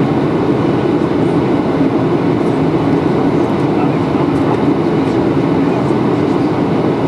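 Steady cabin noise of a Boeing 737-800 in flight, heard from a window seat over the wing: its CFM56 jet engines and the airflow make an even, unbroken rumble.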